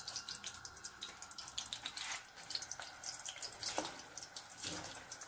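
Hot oil faintly sizzling and crackling in a pan as chunks of green plantain fry, with a few soft knocks.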